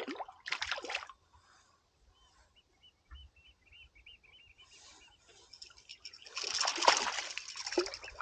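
A small lure-hooked fish splashing and thrashing at the surface as it is reeled in. There are two short splashes right at the start, then a longer, louder spell of splashing and sloshing about two-thirds of the way through as it nears the boat.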